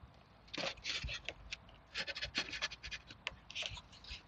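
Small plastic propeller being fitted onto the model plane's motor by hand: irregular scratches and small clicks of fingers working the prop hub, in a few short bursts.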